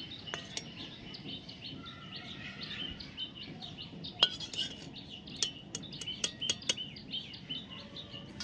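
A metal slotted spoon clinks against a metal kadai several times from about four seconds in, the first clink the loudest, while a dried chilli is fried in the oil. Small birds chirp over and over in the background.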